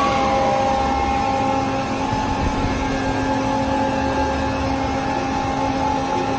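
Ocean Terminator bandsaw running: a steady machine hum with several held tones over a low rumble. One tone slides down in pitch right at the start, then everything holds steady.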